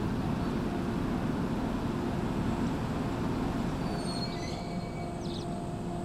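103 series electric train running slowly past: a steady low rumble of wheels and motors with a faint hum. A few faint high chirps sound about two-thirds of the way through.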